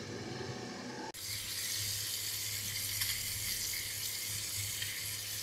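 Coral trout fillets sizzling in a cast-iron frying pan on a gas stove: a steady frying hiss that starts abruptly about a second in.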